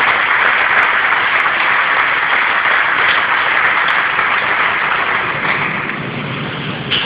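Stadium crowd applauding steadily, the applause slowly dying down over the last couple of seconds.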